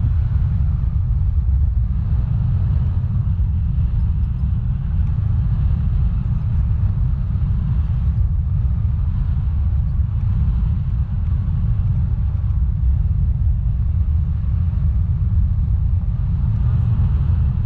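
Wind rushing over the microphone of a camera held out from a paraglider in flight: a loud, steady low rumble.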